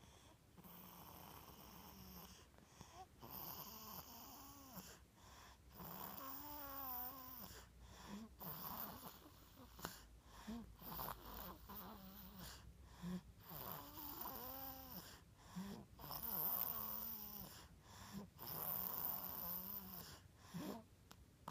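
Snoring: repeated snores about every two seconds, several with a pitched tone that rises and falls within each breath.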